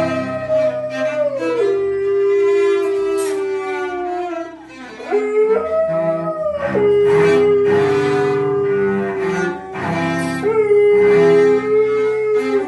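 A dog howling in long, drawn-out notes that slide down in pitch and hold steady, with music underneath.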